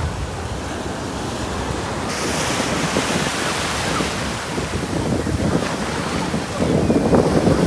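Gulf of Mexico surf washing onto the beach, with wind buffeting the microphone; the wash grows louder near the end.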